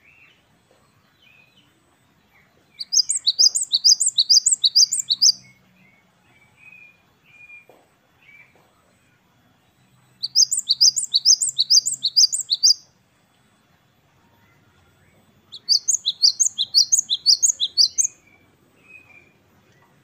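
Cinereous tit (gelatik batu) singing: three bursts of quick, repeated two-note 'wucit-wucit' phrases, about five a second and each burst two to three seconds long, with soft short chirps in the gaps between them.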